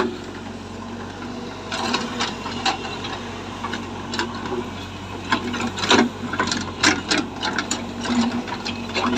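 Heavy earth-moving machine's diesel engine running steadily, with irregular metallic clanks and knocks from the machine working.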